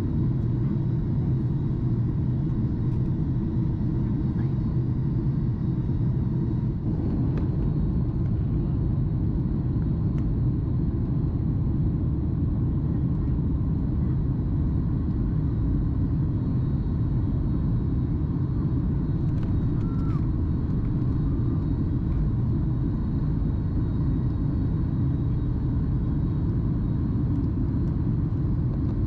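Steady low rumble of a Boeing 737 MAX 8 in flight, heard inside the passenger cabin: airflow and its CFM LEAP-1B engines.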